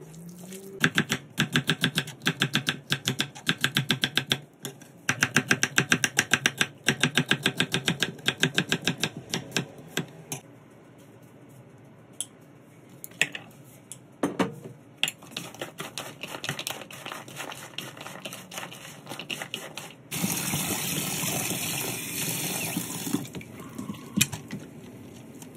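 Gloved hands kneading sliced raw beef in a glass bowl, a fast run of wet squishing ticks, several a second, for about ten seconds. Later a kitchen tap runs for about three seconds, followed by light splashing as sliced bitter melon is rinsed in a plastic basket.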